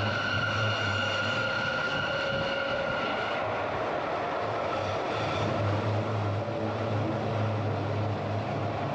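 Glacier Express metre-gauge train running, heard from aboard: a steady rumble and low hum, with a high whine that fades out about three seconds in.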